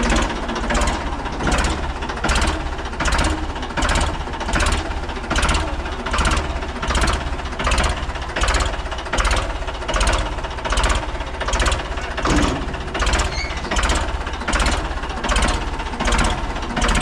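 Ford 3600 tractor's three-cylinder diesel engine running as the tractor moves at low speed. Over it runs an even beat of sharp strokes, about one and a half a second.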